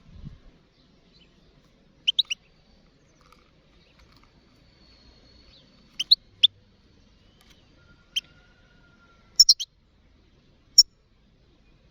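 European goldfinch giving short, sharp chirping calls in quick groups of two or three, with pauses of a second or more between groups.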